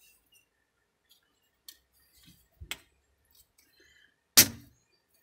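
Hard plastic keyboard case being handled: a couple of small clicks, then one loud clack about four seconds in.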